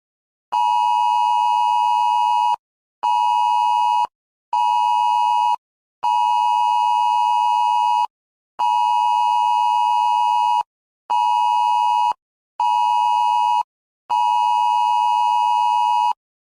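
Wireless Emergency Alert attention signal: a loud two-tone beep sounding eight times in a long, short, short, long, long, short, short, long pattern, each beep starting and stopping sharply.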